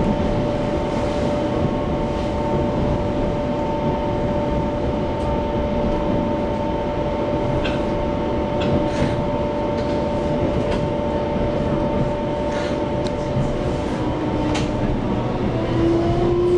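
EMU700 electric commuter train running, heard from inside the car: a steady rumble of wheels on rail with a constant high hum and scattered short clicks. Near the end the hum fades and a whine starts, rising in pitch.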